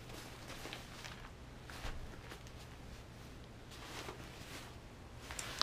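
Faint rustling and a few soft knocks of a black fabric messenger bag being handled and lifted, over a steady low hum.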